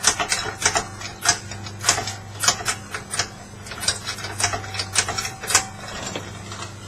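Irregular sharp metallic clicks and knocks, about two or three a second, from hand-tool work on metal, over a steady low hum.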